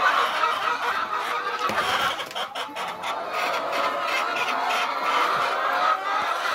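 A large flock of laying hens clucking and chattering together, many overlapping calls at a steady level.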